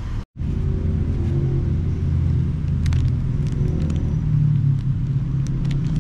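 Steady low rumble of a running engine that drops out for an instant near the start, with a few light crinkles from the plastic bread bag being handled.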